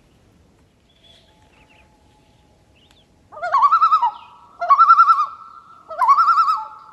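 Common loon calling: three loud wavering phrases about a second and a half apart, each starting with a quick rise in pitch, with a fainter held note carrying between them.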